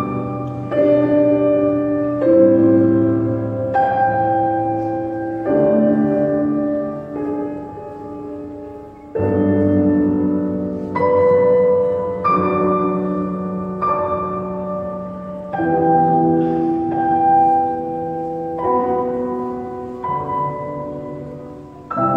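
Instrumental music of sustained keyboard chords, each held for one to two seconds before changing to the next.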